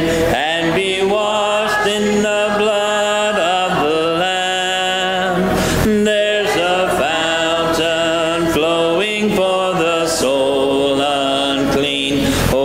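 Congregation singing a hymn together, unaccompanied, in a cappella style: many mixed voices holding sung notes and moving from note to note.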